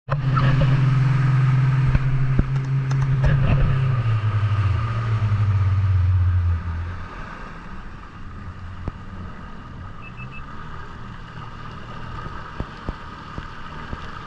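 Jet ski engine running hard with a steady drone, stepping down in pitch about four and a half seconds in, then throttled back about seven seconds in, leaving a low idle under water rushing past the hull.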